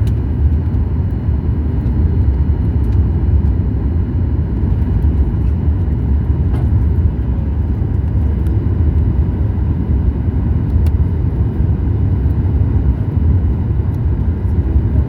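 Steady low rumble of a Boeing 737 MAX 8 airliner in flight, as heard inside the passenger cabin.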